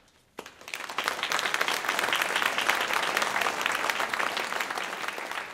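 Audience applause at the end of a concert band piece: a brief hush, then clapping breaks out about half a second in, quickly fills out, and begins to ease off near the end.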